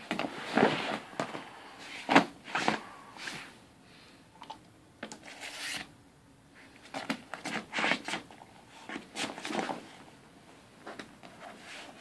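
English cream golden retriever puppy scrabbling and squirming on an air mattress, with its paws scraping and sliding over the mattress and the blanket rustling, in irregular bursts.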